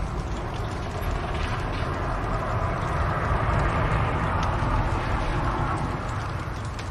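Fire burning in a fireplace: a steady low roar with scattered faint crackles, swelling a little in the middle.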